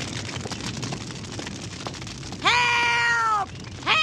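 Crackling noise, then two long, high wailing cries about a second apart, each held about a second and sagging at the end.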